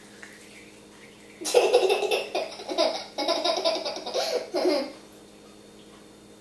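A young child laughing: a string of laughs that starts about a second and a half in and stops about five seconds in.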